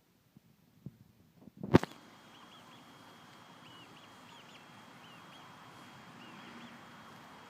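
Baby chicks peeping faintly, a scatter of short, high chirps over a steady hiss, after one sharp knock about two seconds in that is the loudest sound.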